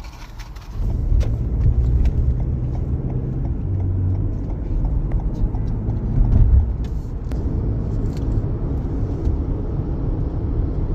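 Car cabin noise while driving: a low engine and road rumble that comes up about a second in and then holds steady.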